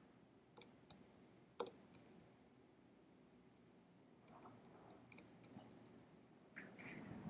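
Near silence with a few faint, scattered computer clicks, from working a spreadsheet with mouse and keyboard.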